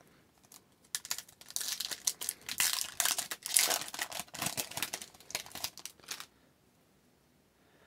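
Foil trading-card pack wrapper being torn open and crinkled by hand. The crinkling starts about a second in and stops about six seconds in.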